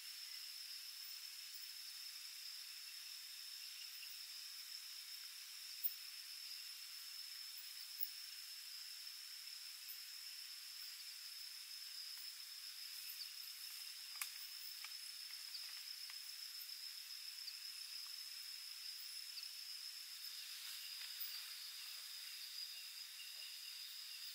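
Night insects chirring steadily at a high pitch, with a few faint ticks and one sharper click about six seconds in.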